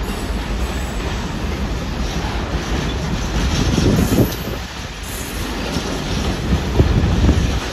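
Freight train passing close by, its wagons rumbling along the track steadily. The sound swells louder about four seconds in and again near the end.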